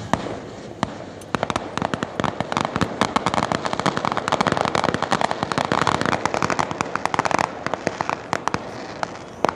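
Aerial fireworks bursting: two single pops near the start, then a dense run of rapid crackling pops, thinning to scattered pops near the end.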